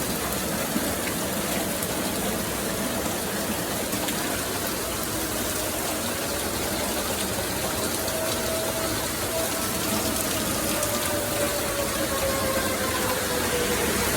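Steady rushing hiss of rain during a storm. In the second half a faint thin tone holds and then slowly falls in pitch.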